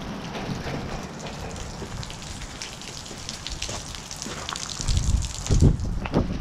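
Continuous crackling and crunching of footsteps over loose, rotted wooden floor blocks and debris, with a few heavier low thumps about five seconds in.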